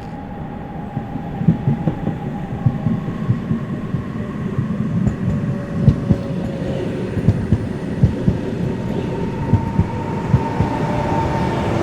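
Ivolga (EG2Tv) electric train pulling away. Its traction inverters whine in several thin tones that step and slide in pitch, and low knocks come from the wheels over rail joints. The sound grows louder.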